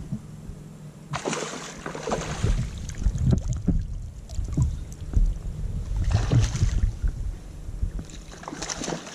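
A kayak on the water: a few irregular bursts of splashing and rustling, with light knocks, over a low background rumble.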